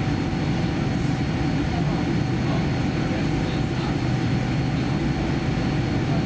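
Steady cabin noise inside a Boeing 787-10 on the ground before takeoff: a low, even rumble from the engines and air-conditioning with a faint steady whine above it.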